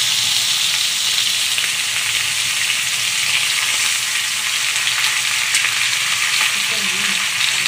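Raw chicken pieces sizzling steadily in hot oil with browned onions in an aluminium kadai, stirred with a metal ladle that gives a few faint scrapes.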